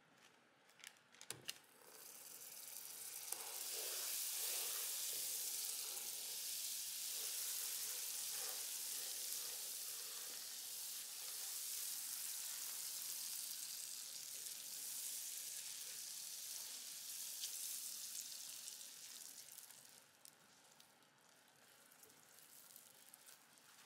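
Hot caramel sizzling in a nonstick frying pan as a pat of butter melts into it and is stirred with a silicone spatula. A few light taps come in the first second or so, then a steady sizzle sets in about two seconds in and dies down to a softer fizz near the end.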